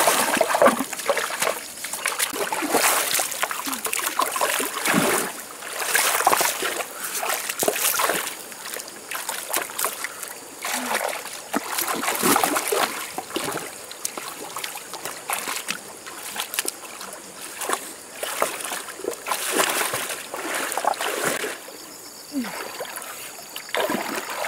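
Hands splashing and sloshing through shallow stream water in irregular bursts, one after another.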